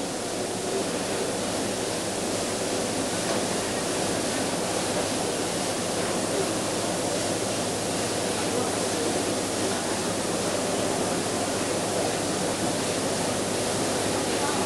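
Steady crowd noise of a large audience in an indoor arena hall, a continuous even hubbub with no single event standing out.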